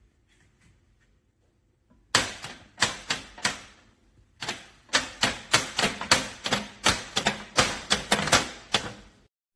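A run of sharp, loud taps or knocks from hard objects, a few spaced strikes at first, then a quicker run of about two to three a second.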